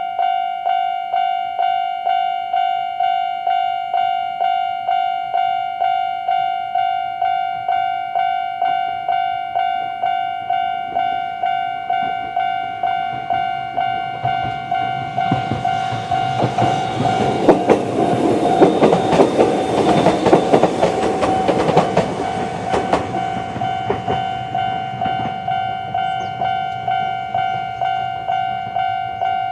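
Japanese railway level-crossing alarm of the old standard type ringing a steady electronic ding about twice a second. Konan Railway 7000 series electric train passes over the crossing from about 15 to 23 seconds in, its wheels clattering on the rails and louder than the alarm. The alarm stops right at the end.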